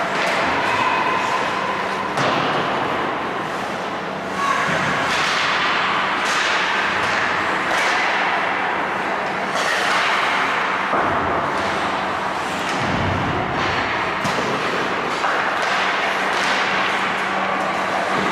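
Ice hockey play on the rink: skate blades scraping the ice in a steady hiss, with frequent sharp knocks and clacks of sticks and puck.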